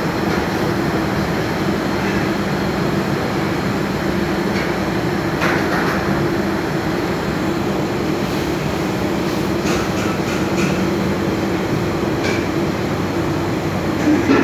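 Steady, loud drone of commercial kitchen machinery with a constant low hum, with a few light clinks of metal tandoor skewers being handled.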